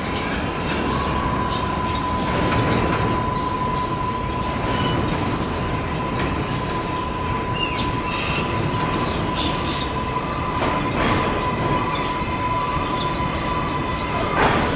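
Kawasaki R142A subway train pulling into a terminal station, its wheels rumbling on the rails under a steady high-pitched whine. A few sharper clacks come through, the loudest near the end as the train draws close.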